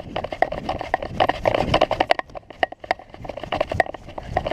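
Footsteps of a person walking: a string of sharp, unevenly spaced steps, a few each second.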